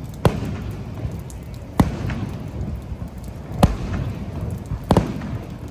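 Fireworks bursting: four sharp bangs, each with a short echo, about a second and a half apart, over a steady low background noise.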